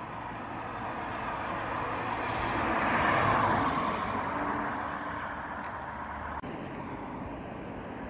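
A stock VW Golf Mk6 with a 1.4 TSI turbo petrol engine and DSG gearbox driving past in normal drive mode. Its sound swells to a peak about three seconds in and fades as it moves away.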